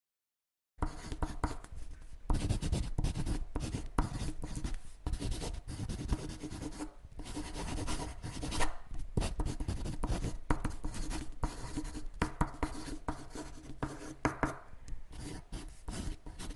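Marker drawing on a board: quick, scratchy strokes in a continual stream, starting about a second in.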